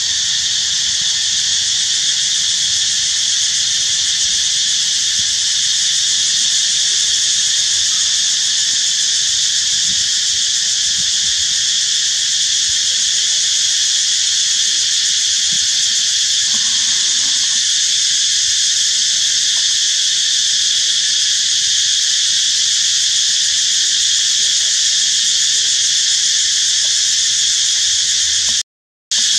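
A loud, steady chorus of insects buzzing in high, unbroken bands, cut off for a moment near the end.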